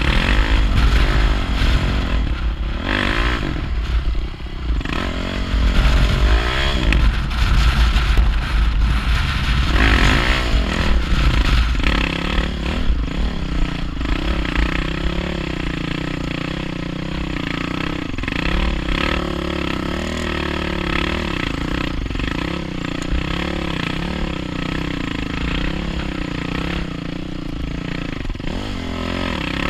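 Dirt bike engine revving up and down as the bike is ridden over a rough trail, with a heavy low rumble through the first twelve seconds. After that the engine settles into a steadier, lower note with small rises and falls.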